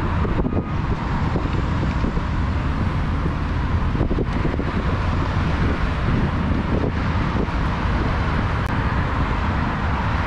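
Wind rumbling on the microphone of a moving bicycle, over steady road traffic noise.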